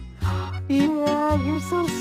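Background music: a lead melody that bends and wavers over steady held bass notes.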